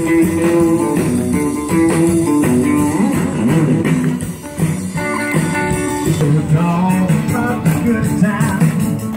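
A band playing blues music led by guitar, with some singing.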